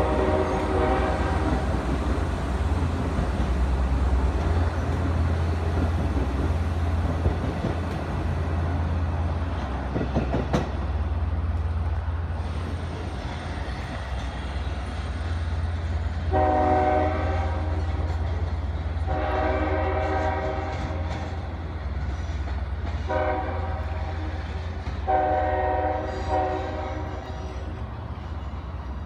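Long Island Rail Road M7 electric train horn sounding the grade-crossing signal: two long blasts, a short one, then a long one. It plays over the steady rumble of trains moving through the station, and another horn blast fades out about a second in.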